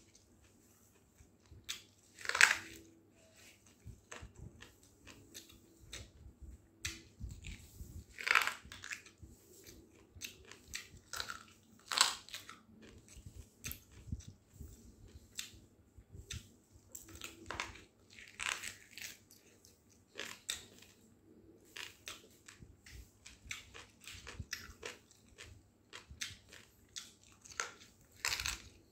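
A person chewing and biting boiled mutton and rice eaten by hand: many short, irregular mouth sounds, with a few louder bites now and then.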